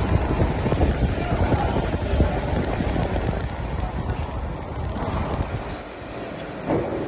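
Heavy engine lathe running, turning a long steel shaft in its large chuck: a steady low rumble with a dense, irregular rattle from the machine's gearing.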